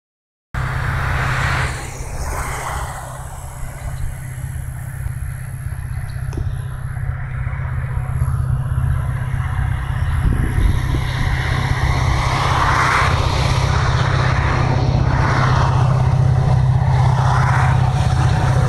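EMD diesel-electric freight locomotives approaching, their engines giving a steady low drone that grows gradually louder.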